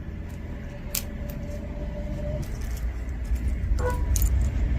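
Small metal costume-jewelry pieces clicking and clinking lightly as they are handled and sorted, in scattered taps that grow more frequent near the end, over a steady low rumble.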